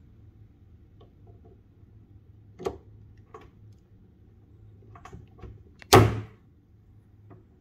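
Mains charger plug being handled at a plastic power-strip socket: a few light clicks and knocks, then one loud clunk about six seconds in as the plug is pushed home.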